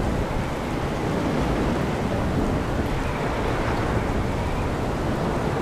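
Severe thunderstorm wind and rain from a derecho: a steady rush of noise without a break.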